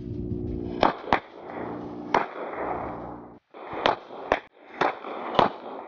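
Glock pistol shots at an outdoor range: a quick pair about a second in and a single shot a second later, then, after a brief break in the sound, four more shots about half a second apart.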